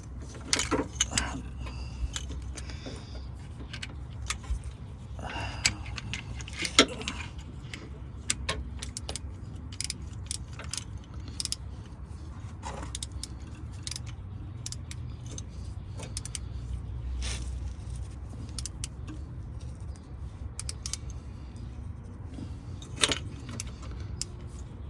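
Irregular metallic clicks and clinks of a 19 mm socket wrench being fitted onto and turned on the VTM sensor in a 2007 Honda Pilot's differential case as the sensor is tightened, over a steady low hum.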